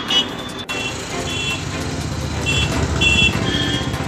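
Road vehicle running with a steady low engine and road rumble, as heard from a moving vehicle. Short high-pitched tones come and go several times over it.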